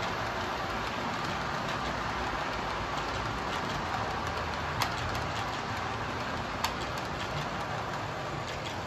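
HO scale model passenger train running on its track: a steady rushing rattle of metal wheels on the rails, with scattered small clicks and two sharper clicks about five and seven seconds in.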